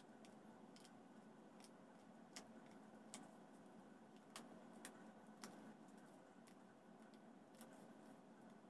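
Near silence, with faint, irregular clicks and crackles from a corrugated flexible plastic pipe being handled as wires are twisted into it.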